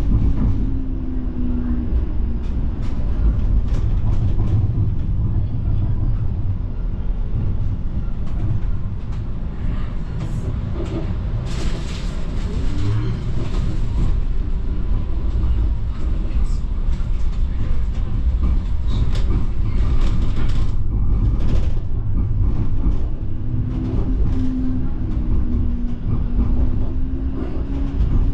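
Streetcar riding along its rails, heard from inside: a steady low rumble with scattered clicks and rattles, and a humming tone that shifts in pitch near the start and again near the end.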